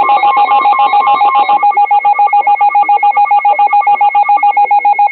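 Emergency Alert System attention signal: a loud two-tone alarm, pulsing several times a second, marking the start of a new emergency alert.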